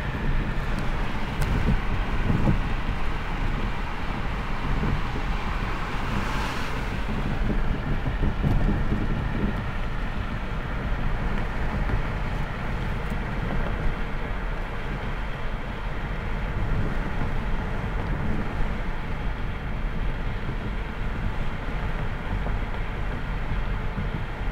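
Car driving at steady speed, heard from inside the cabin: a continuous low rumble of engine and tyres on the road, with a brief swell of hiss about six seconds in.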